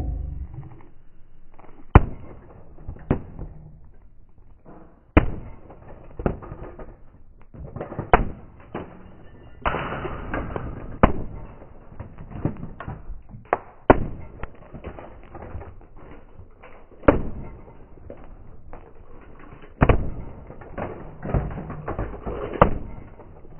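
Hammer blows smashing a cheap plastic toy train: a series of loud, sharp knocks at irregular intervals, about one every one to two seconds, with lighter knocks between.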